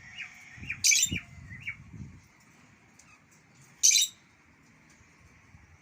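Bulbul calling: a quick run of short, arched chirps in the first two seconds, and two loud, harsh squawks about three seconds apart.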